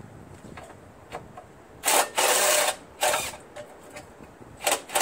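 Handheld cordless drill/driver running in several short bursts. The longest lasts about half a second, about two seconds in; two quick bursts come near the end.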